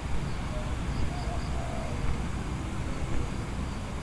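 Strong wind buffeting the microphone: a steady, uneven low rumble.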